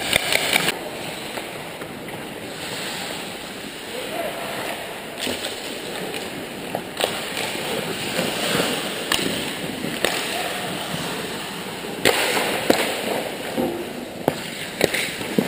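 Ice hockey play at close range: skate blades scraping and hissing on the ice, with several sharp clacks of sticks and puck spread through it, and players' voices in the background.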